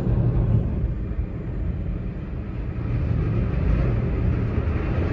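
Steady low rumble of a car moving, engine and road noise, easing off a little about two seconds in and building again.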